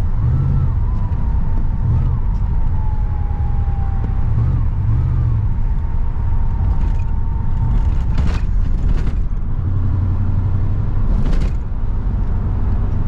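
Car engine and road noise while driving: a steady low rumble that swells a few times, with a faint thin whine above it and a few short knocks about eight, nine and eleven seconds in.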